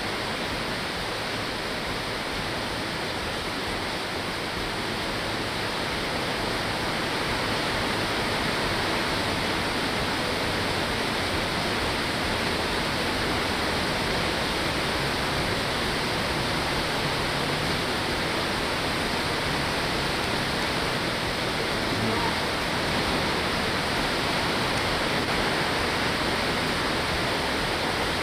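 Steady rain heard from inside a warehouse: an even hiss that grows a little louder about seven seconds in.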